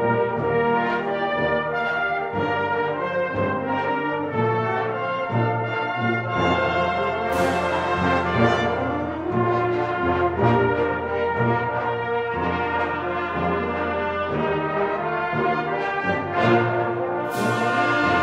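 Brass band playing sustained chords over low bass notes. A bright crash rings out about seven seconds in and again near the end.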